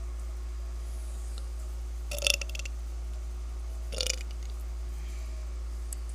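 A woman burping twice, about two seconds in and again about four seconds in, the first louder and longer, over a steady low hum.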